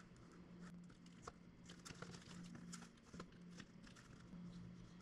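Near silence with a steady low hum and a few faint, sharp clicks of a small screwdriver prying a dashcam's metal cooler apart from its circuit board.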